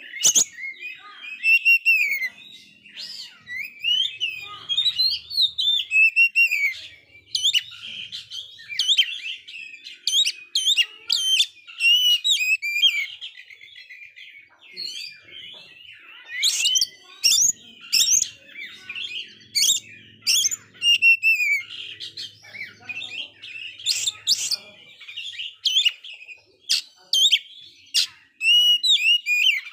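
Caged oriental magpie-robin (kacer) singing a long, varied song of quick gliding whistles and sharp, piercing notes, with only short pauses.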